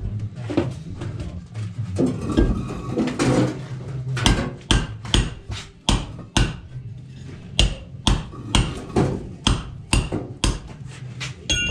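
A hand hammer striking a concrete block: a run of sharp, ringing knocks, one or two a second, starting about four seconds in.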